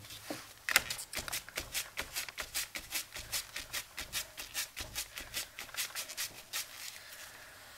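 A damp sponge loaded with tea-dye distress ink dabbed over and over onto a cardstock page, making quick soft pats about four times a second that start about a second in.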